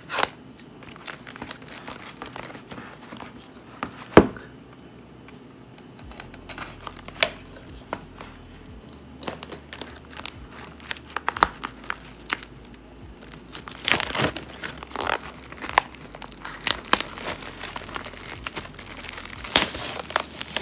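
Clear plastic shrink wrap being torn and crumpled off a sealed hockey card hobby box, in irregular crinkles and sharp snaps. There is a loud snap right at the start and another about 4 s in, and the crinkling is densest over the last several seconds.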